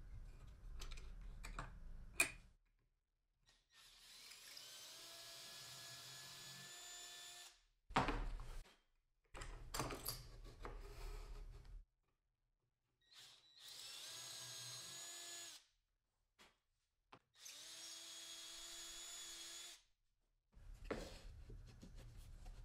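Electric drill running in three short bursts of about two to four seconds each, boring a hole into a hardwood block with a twist bit. Between the bursts there are sharp knocks and clicks of wood being handled and set down, and these are the loudest sounds.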